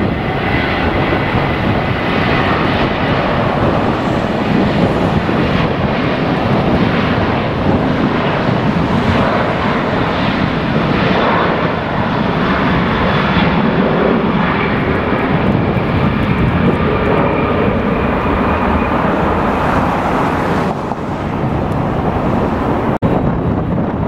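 Twin turbofan jet engines of a WestJet Boeing 737 at takeoff power on the runway: a loud, steady roar with a faint high whine above it. The sound thins out near the end.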